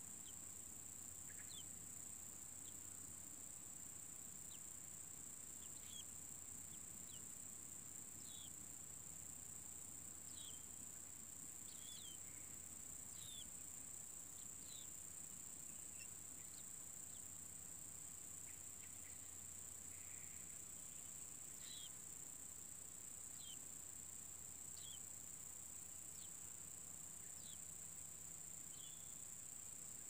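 Steady high-pitched drone of insects, with short faint bird chirps every second or two.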